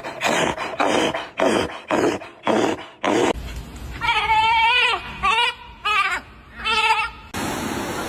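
A dog vocalizing: a run of short rough huffs about twice a second, then three wavering, quavering high calls like a bleat.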